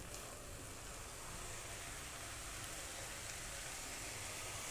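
Stir-fried cabbage sizzling softly in the pan, a faint, steady hiss.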